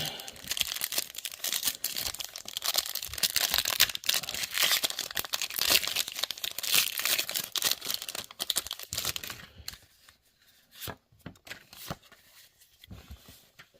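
Foil wrapper of a Pokémon card booster pack being torn open and crinkled, dense crackling for about nine and a half seconds. After that it goes much quieter, with only a few light taps.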